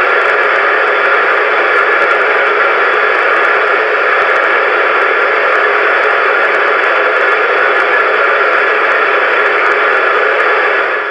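Steady hiss of radio static from a radio receiver.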